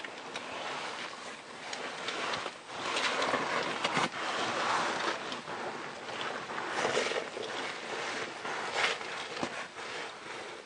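A caver's suit and gear scraping and rustling against packed snow and ice as he wriggles through a tight squeeze, in irregular surges with small crunches.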